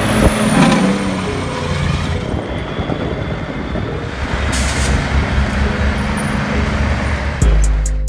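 Diesel engine of a semi-truck tractor running steadily, with a brief hiss about halfway through. Music with a heavy bass beat cuts in near the end.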